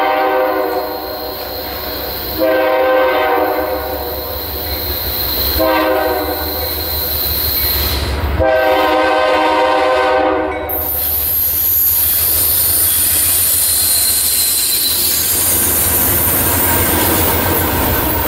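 Diesel freight locomotive's air horn sounding the grade-crossing signal as the train approaches: the tail of a long blast, then a long, a short and a final long blast of about two seconds. Then the train passes, freight cars rumbling and clattering over the rails with high wheel squeal.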